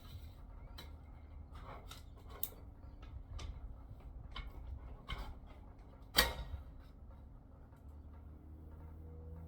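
Scattered light knocks and clicks from a sliding door frame being worked on by hand, with one sharper knock about six seconds in.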